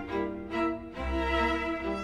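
Slow background music of long held notes, with a low bass note coming in about halfway through.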